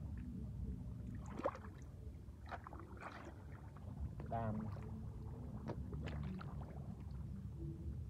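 Hands splashing and sloshing in shallow muddy water, with a few sharper splashes scattered through.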